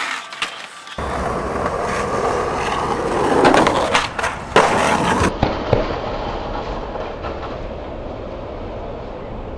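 Skateboard wheels rolling with a steady rumble, starting abruptly about a second in. Several sharp clacks of the board come between about four and five seconds in, the loudest sounds here.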